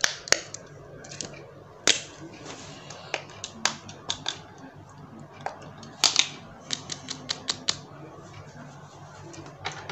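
Sharp plastic clicks and pops from hands pressing the silicone bubbles of simple-dimple fidget toys and handling them, irregular at first, then a quick run of clicks about six seconds in.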